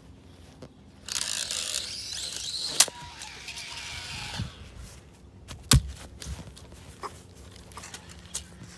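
A small toy quadcopter drone being thrown and kicked about on grass: rustling, a sharp crack about three seconds in, and a heavy thud a little before six seconds in, followed by a few lighter knocks.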